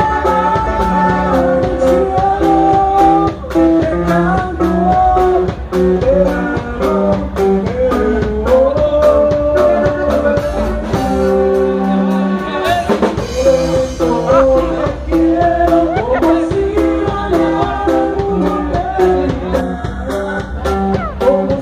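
Live norteño-style band playing a song with a singer: drum kit keeping a steady beat under guitar-type strings and sustained melody lines.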